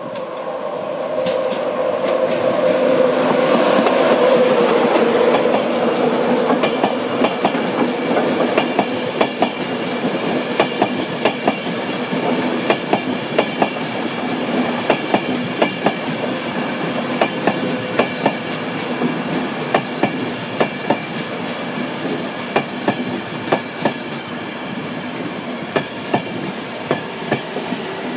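LNER InterCity 225 passing: the Class 91 electric locomotive's steady hum swells as it goes by, then the Mark 4 coaches' wheels click rhythmically over the rail joints, fading slowly as the train draws away.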